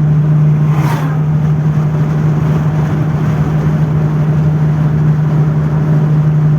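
A car driving, heard from inside the cabin: a steady engine hum over road noise, with a brief whoosh about a second in.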